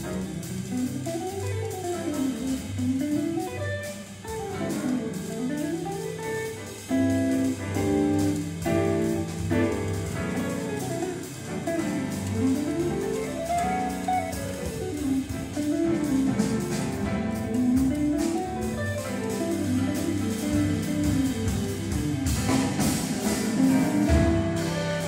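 Live jazz combo playing: a hollow-body electric guitar takes the lead in fast runs that climb and fall, over piano chords, walking upright bass and drums.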